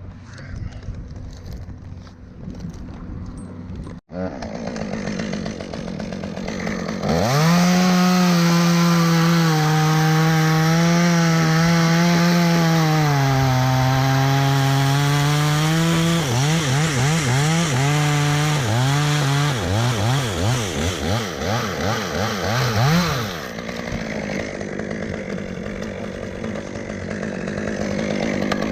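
Two-stroke chainsaw cutting wood at high revs, its pitch sagging under load partway through, then revving up and down in quick swings before falling back to a quieter, lower running near the end.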